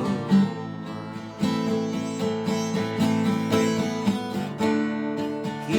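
Acoustic guitar strumming chords in an instrumental break between sung lines.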